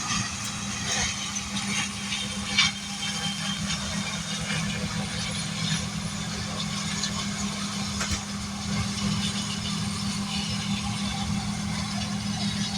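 John Deere combine harvester running while cutting soybeans: a steady engine hum under an even rushing noise, with a sharp click about two and a half seconds in and another near eight seconds.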